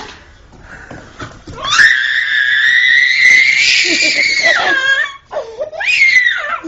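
A young child's high-pitched scream, held for about three seconds, followed near the end by a shorter wailing cry that rises and falls.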